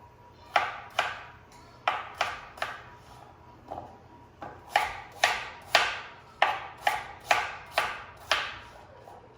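Kitchen knife chopping vegetables on a cutting board: about fifteen sharp, unevenly spaced strokes.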